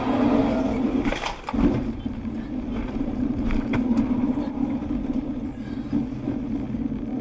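Steady drone of a car driving, heard from inside the cabin, with a few short knocks about a second in and again a few seconds later.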